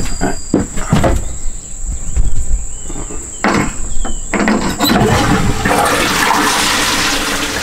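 A few knocks and clatters, then about four and a half seconds in a toilet cistern is flushed with its lever and water rushes out steadily.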